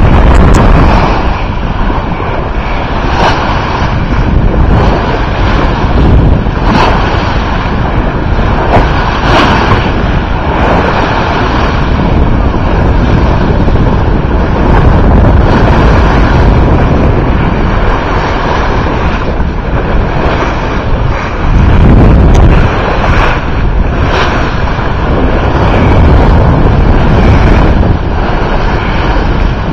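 Heavy wind buffeting the microphone on a sailboat under way, over water rushing and splashing, with short sharper splashes scattered throughout.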